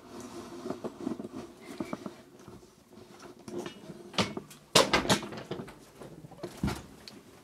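Footsteps and handling knocks as a wooden door is opened and walked through, with a sharp knock a little over halfway and another near the end.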